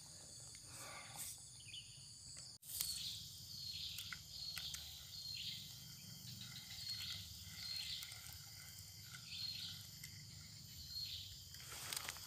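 Insects droning steadily in a tropical swamp. Over the drone, a short chirp repeats roughly once a second. The sound drops out for an instant about two and a half seconds in.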